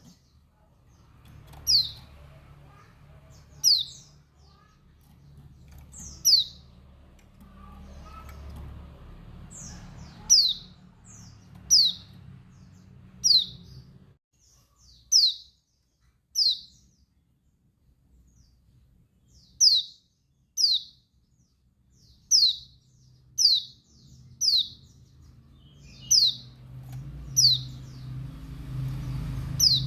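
A female Bali yellow-breasted white-eye (pleci) giving its calling chirps: short, high, downward-slurred notes repeated about every one to two seconds. This is a female's call to males, used to excite and provoke male white-eyes. A low rumble sits underneath for the first half and again near the end.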